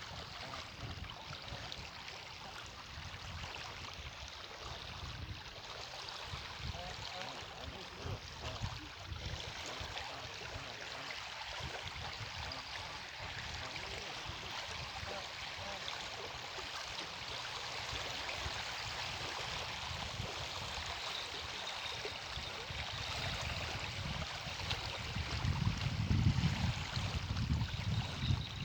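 Strong wind buffeting the microphone: a gusty low rumble under a steady rushing hiss, with the gusts growing stronger near the end.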